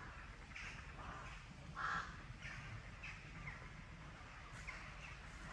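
A crow cawing: a run of short, harsh caws about two a second, the loudest about two seconds in.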